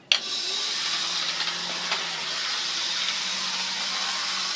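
A sharp click, then a steady hissing rush that runs for about five seconds and fades out near the end.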